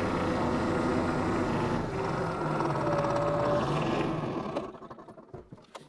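New Holland compact tractor's diesel engine running steadily, then shut off about four and a half seconds in and winding down to stop.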